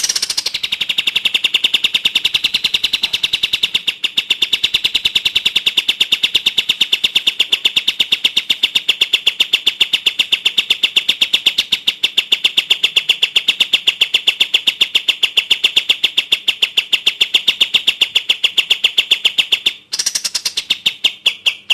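Songbird call: one long, very rapid rattle of identical high notes, many a second, that stops briefly near the end and starts again.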